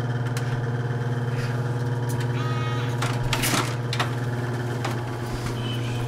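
A steady low mechanical hum runs throughout, with scattered clicks and knocks. The loudest knock, about three and a half seconds in, is the hotel room door being pushed open. A brief high pitched sound comes a little past two seconds in.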